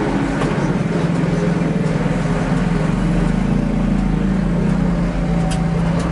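Bus and surrounding traffic engines running in a slow queue, a steady low engine note that rises for a second or so about three seconds in as the traffic creeps forward. A single sharp click near the end.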